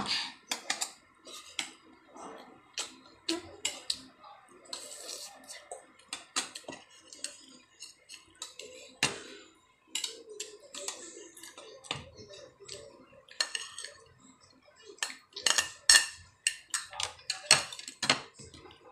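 Metal spoons clinking and scraping on plates while eating, in many short sharp clinks scattered throughout, busiest over the last few seconds.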